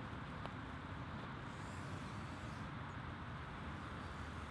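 Steady outdoor background noise: an even hiss with a low, uneven rumble underneath and no distinct event.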